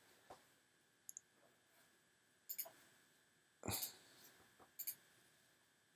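Near silence broken by a few faint, short computer mouse clicks, scattered irregularly; the loudest comes about two-thirds of the way through.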